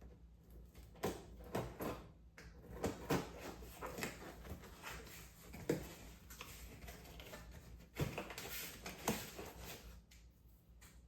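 Irregular light knocks, clicks and rustles of objects being handled, dying down near the end.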